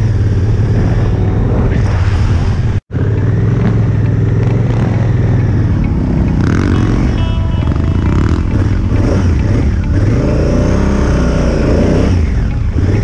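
Vehicle engine running steadily under load, its revs rising and falling near the end; the sound cuts out for an instant about three seconds in.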